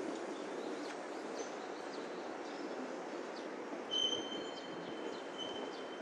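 Steady rumble of a passing train. About four seconds in, a high, steady squeal joins it for under two seconds.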